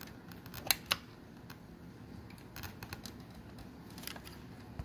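Small screwdriver working the plastic clips on a hard drive's power and SATA cable connectors: a handful of sharp clicks and taps, the two loudest close together just under a second in.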